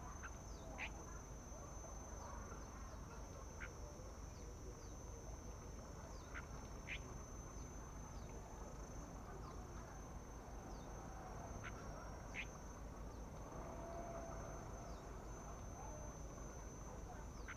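A steady, high-pitched insect drone runs throughout, with short bird chirps and quick falling call notes scattered through it every second or so.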